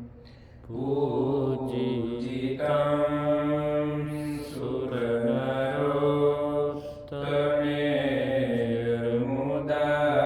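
Devotional mantra chanting: a voice holding long sung phrases of about two seconds each over a steady low drone.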